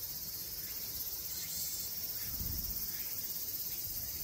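A steady, high-pitched chorus of cicadas shimmering on without a break, with a low rumble underneath that swells briefly about two and a half seconds in.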